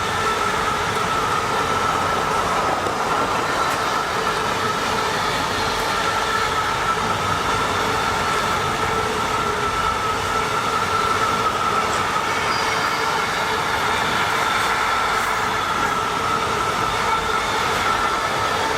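A train passing steadily, its running noise carrying a steady high-pitched whine.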